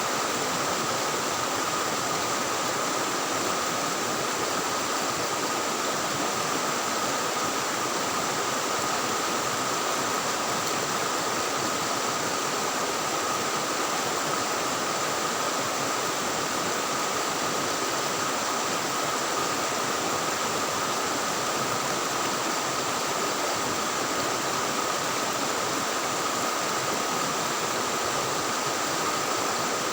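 Fast-flowing river current rushing steadily, an even unbroken wash of water noise.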